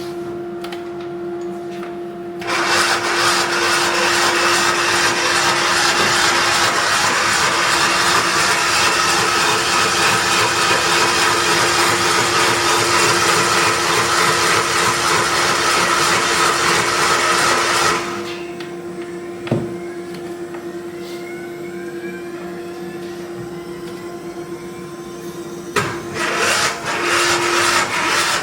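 A motorised machine running loudly and steadily for about fifteen seconds, then cutting off suddenly, over a steady hum; it starts up again near the end.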